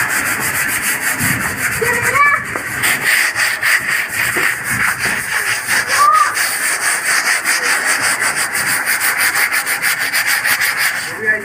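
Sandpaper rubbed by hand back and forth over the painted sheet-metal of an old steel almirah in fast, continuous strokes, sanding down the old finish before repainting.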